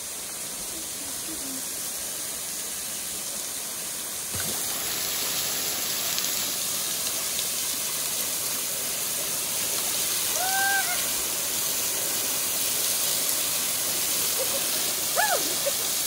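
Small waterfall falling onto rocks and into a pool: a steady rush of splashing water that gets louder about four seconds in.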